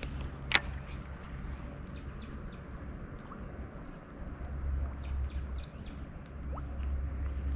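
Riverbank ambience: a low, uneven rumble with scattered faint bird chirps, and one sharp click about half a second in.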